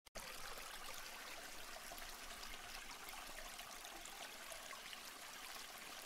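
Aquarium water trickling faintly and steadily.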